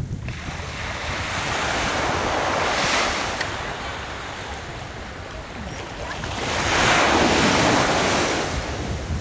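Small sea waves breaking and washing up on a sandy beach, surging twice about four seconds apart, the second surge louder and longer. Wind rumbles on the microphone underneath.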